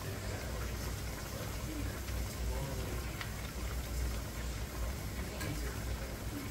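Pressure canner heating under pressure: a steady low rumble and hiss of water boiling inside the closed canner.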